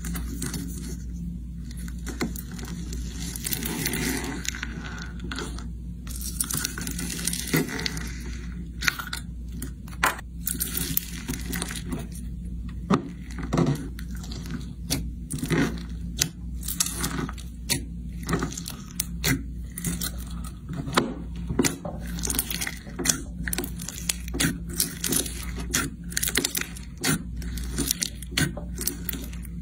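Fingers pressing and squishing slime packed with white foam beads in a plastic tub, giving a crackling, crunchy sound. From about nine seconds in it breaks into sharp pops, several a second, over a steady low hum.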